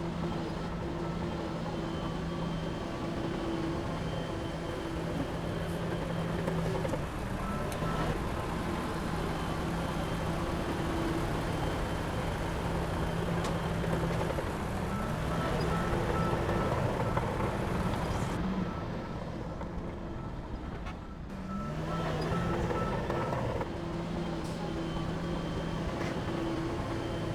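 Heavy diesel earthmoving machinery running steadily, with a short dip in level about two-thirds of the way through.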